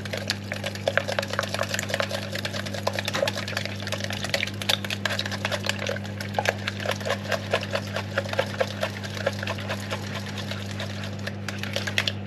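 A fork beating eggs, cheese and milk in a plastic measuring jug: rapid, continuous clicking of the fork against the jug with wet sloshing of the liquid, over a steady low hum.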